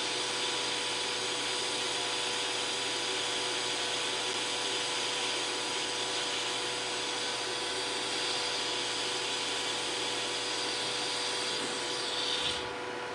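DC lift-start TIG welding arc from a Forney Easy Weld 180 ST running at about 95–100 amps: a steady hiss as a fillet bead is laid with 3/32-inch filler rod. The arc is broken near the end and the hiss cuts off.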